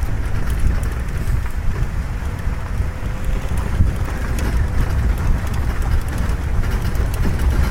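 Safari vehicle driving along a dirt forest track: a steady low rumble of engine and tyres, with wind buffeting the microphone.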